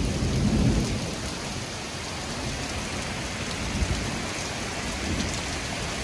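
Heavy thunderstorm rain pouring steadily onto the road and cars, with a low rumble of thunder in the first second that fades out. One brief sharp tap a little past halfway.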